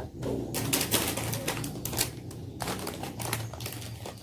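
Clear plastic crispack bags holding squishies crinkling and clicking as they are handled and moved one by one while being counted.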